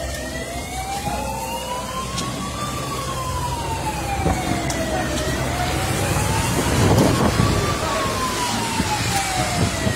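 Emergency vehicle siren in a slow wail, its pitch rising and falling in cycles of about five seconds, over a steady low rumble of vehicle engines. A louder rush of noise swells briefly about seven seconds in.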